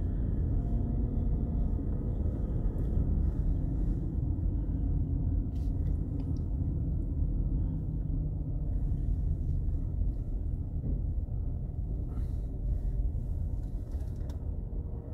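Steady low rumble of a car's engine and tyres heard from inside the cabin while the car is driven.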